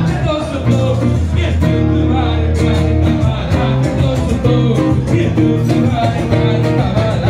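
Loud live band music for dancing: a steady beat and bass line with a voice singing over it.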